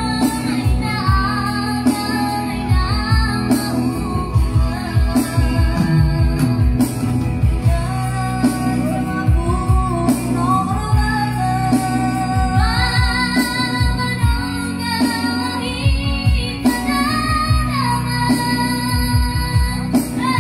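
Children singing into microphones over amplified backing music with a steady beat, a girl's high voice leading the melody.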